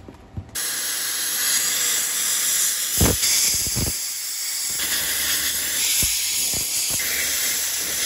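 Plasma cutter arc starting about half a second in and hissing steadily as it cuts a bevel around the end of a sheared steel plough wheel shaft. A few dull knocks sound over the hiss.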